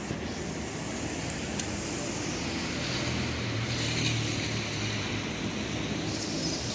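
A road vehicle running, with a steady engine hum under road noise that swells slightly midway.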